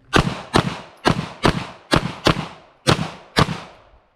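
Handgun shots fired rapidly during an IPSC practical-shooting stage: eight sharp cracks coming in rough pairs, each pair about half a second apart with slightly longer pauses between pairs, the pattern of double-taps on successive targets.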